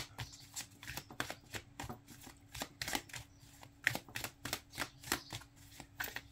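A deck of oracle cards being shuffled by hand: a quick, irregular run of soft card snaps and flicks, about three or four a second.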